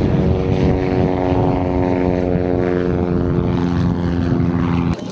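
Single-engine propeller airplane flying low past, its engine drone steady and loud, the pitch sinking slowly as it goes by.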